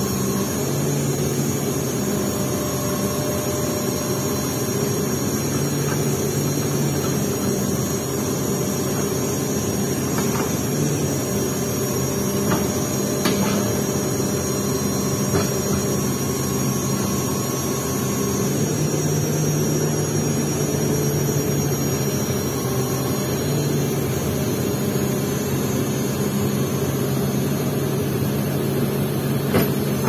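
Heavy diesel engines of a tracked excavator and a logging truck running steadily, the low engine note growing stronger about two-thirds of the way through. A few light knocks come in the middle.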